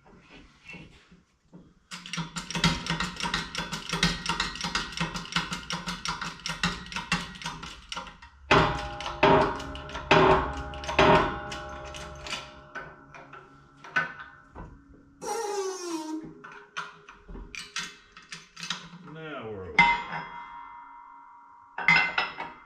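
Shop press being pumped to force the shaft into a water pump: rattling and clicking, then several loud metal knocks a second or so apart, with squeaks and creaks from the press as it bears down.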